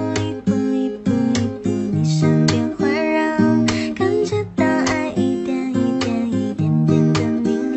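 Background music led by a strummed guitar, with notes changing to a steady beat.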